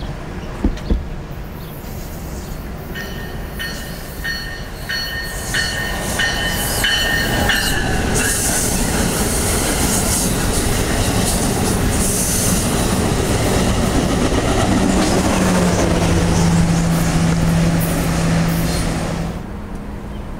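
NJ Transit commuter train of multilevel coaches passing close by at speed, with a loud rush of wheels on rail. Repeated high squealing tones sound in the first several seconds, and a steady low hum joins from about fifteen seconds in. The sound cuts off abruptly near the end.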